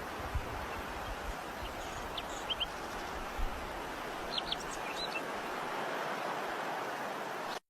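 A few short, high bird chirps over a steady outdoor hiss, with some low thuds in the first second or so. This is the quiet after the guns stop in a recording of the end of World War One.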